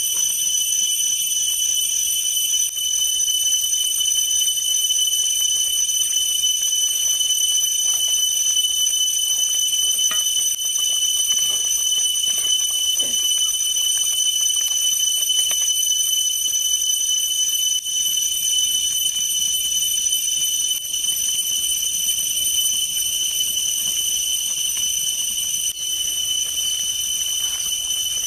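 Steady, high-pitched insect chorus droning without a break, with a few faint knocks of a wooden spoon in the pot around the middle.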